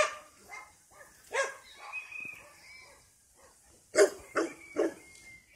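A dog barking several times: one bark at the start, another about a second and a half in, then three quick barks about four seconds in.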